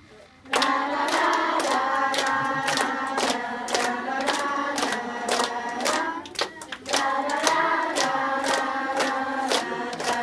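Children's choir singing a song, with hand claps keeping an even beat about twice a second. The singing breaks off briefly just after the start and again about six and a half seconds in.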